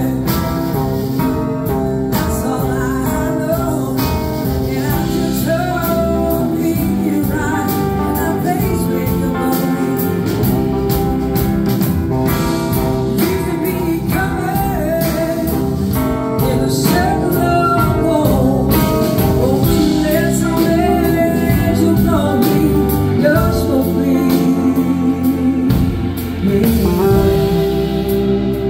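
Live blues-rock band playing a song: a woman singing lead over electric guitars, drums and backing singers.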